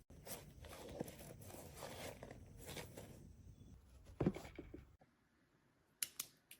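Rustling, crinkling handling noise, with one loud knock about four seconds in; it cuts off abruptly, followed by two sharp clicks near the end.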